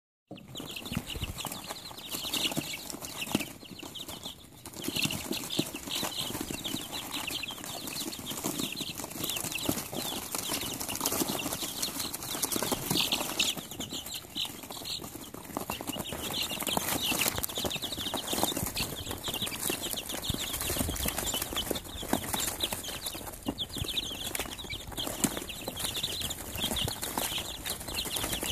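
A brood of young chicks peeping in a dense, continuous chorus of short high cheeps, with sharp pecking and scratching clicks on newspaper and bursts of fluttering wings.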